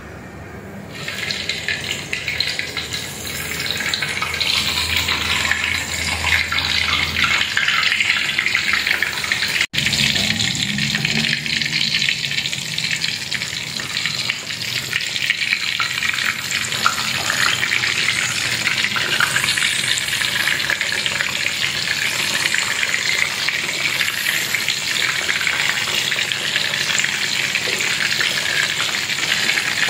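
Cassava pieces deep-frying in hot oil in a wok, a steady loud sizzle. It starts about a second in, as the cassava goes into the oil, and holds.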